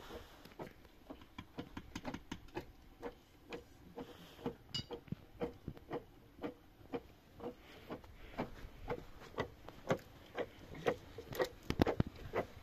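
Wooden pestle pounding in a mortar: a steady run of hollow knocks, about two a second, louder near the end.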